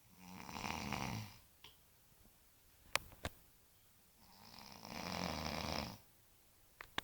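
A sleeper snoring: two long snores about four seconds apart, each swelling gradually and then cutting off. Between them come two sharp clicks a quarter second apart, and a couple of fainter clicks near the end.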